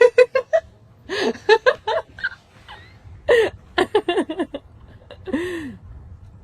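People laughing in several quick bursts of pulsing "ha-ha" laughter, with a drawn-out vocal sound near the end.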